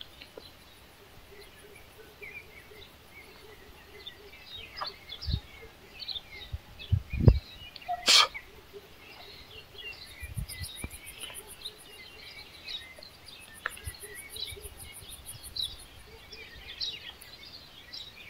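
Small birds chirping steadily, with a few dull thumps in the middle and one sharp click about eight seconds in.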